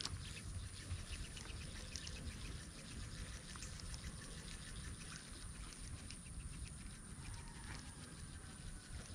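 Faint outdoor ambience: a steady high-pitched insect drone over a low rumble, with scattered faint ticks.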